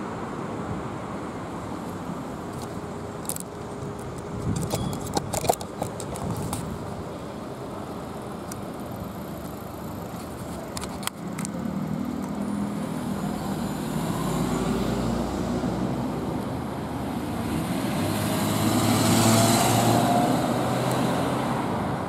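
Street traffic at a city intersection: a steady hum of cars going by, with a run of sharp clicks about four to six seconds in. In the second half, cars drive past close by, and the loudest pass comes near the end.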